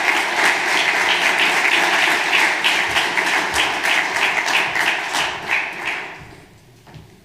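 Audience applauding, a dense run of handclaps that dies away about six seconds in.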